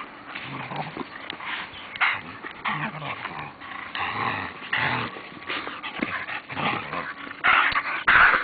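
Belgian Malinois growling in play: a run of short, rough growls, loudest near the end.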